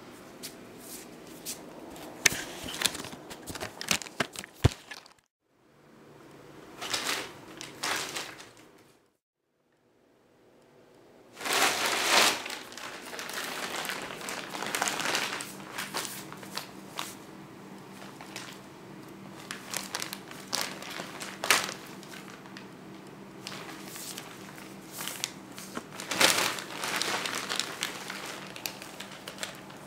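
Large plastic shopping bag crinkling and rustling in irregular bursts as kittens climb into it and paw at it. The rustling breaks off briefly about five seconds in and again for a couple of seconds around ten seconds in.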